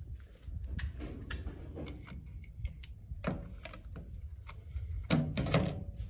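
Handling sounds as a plastic mesh food cover is lifted off a plate of apples: scattered light clicks and knocks, and a louder scraping squeak about five seconds in, over a low steady rumble.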